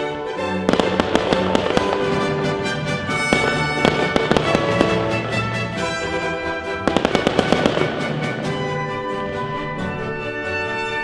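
Aerial fireworks crackling and popping in several quick clusters of cracks, over music with sustained notes.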